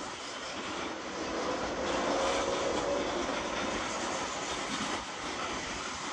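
Freight train's coal gondolas rolling past at slow speed, wheels on rail giving a steady rumble as the train slows toward a stop. It swells somewhat about two seconds in.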